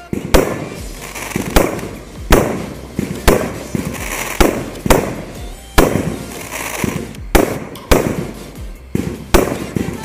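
Aerial fireworks bursting overhead: sharp bangs about once a second, each trailing off quickly.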